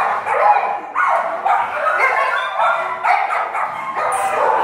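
Dogs barking and yipping without a break.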